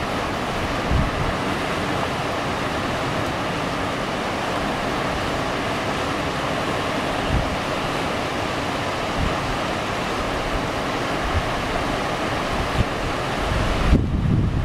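Whitewater rapids of the Urubamba River rushing steadily, a dense, even water noise, with wind buffeting the microphone now and then, most strongly near the end.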